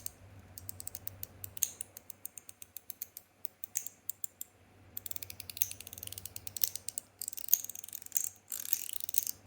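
Stainless-steel slider fidget being slid back and forth by hand, giving sharp metallic clicks as the slide snaps into place. The clicks come singly and in quick runs at first, then in denser, rattling flurries in the second half.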